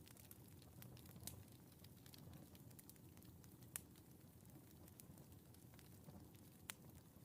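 Wood fire in a fireplace crackling softly: a low steady rumble of burning with scattered sharp pops and snaps, the loudest pops about 4 and 7 seconds in.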